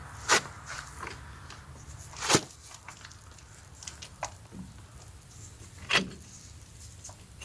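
Steel parts being handled and set in place for straightening a hydraulic cylinder rod: three sharp metal knocks, a few fainter ticks and clinks between them, over a low steady hum.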